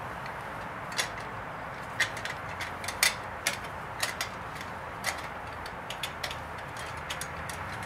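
Light, irregular clicks and taps as a compression tester's gauge and hose are handled and fitted on the engine, over a steady low hiss.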